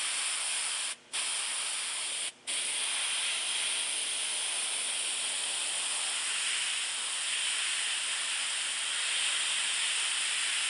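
Iwata gravity-feed airbrush spraying paint: a steady hiss of air and paint. It cuts out briefly twice, about one and two and a half seconds in, then runs on.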